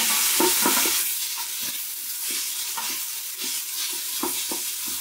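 Chopped onion sizzling in hot avocado oil in an Instant Pot's stainless steel inner pot on the sauté setting, with a wooden spatula scraping and tapping as it is stirred. The sizzle is loudest at first and eases a little after about a second.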